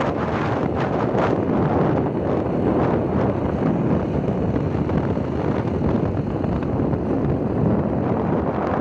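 Wind rushing over the microphone of a phone carried on a moving motorbike: a steady, fairly loud rush of noise with no clear engine note.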